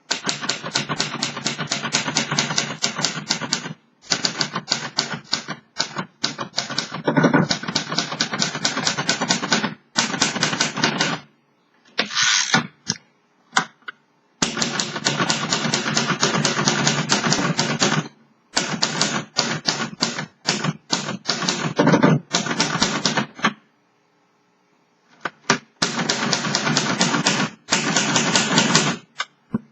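1950 Royal Companion manual typewriter being typed on quickly: rapid runs of keystrokes and typebars striking the platen. The runs break off every few seconds into short pauses, one with only a few scattered strikes.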